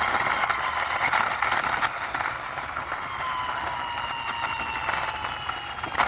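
A plastic toy police motorbike rolled by hand across a hard surface: a steady rolling rattle, with faint whining tones that slowly fall in pitch.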